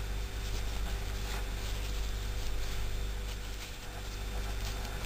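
Faint rustling and soft ticks of a metal crochet hook pulling yarn through stitches, over a steady low electrical hum.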